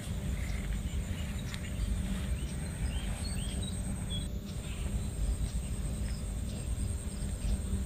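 Rice-field ambience: scattered short bird chirps over a steady low rumble.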